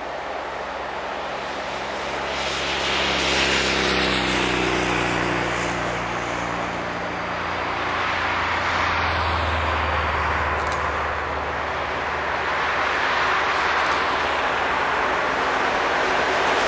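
Cars passing on a road beside the railway line, each swelling and fading as it goes by, twice, the first with a falling pitch. Underneath, an electric-locomotive-hauled passenger train approaches and grows louder near the end.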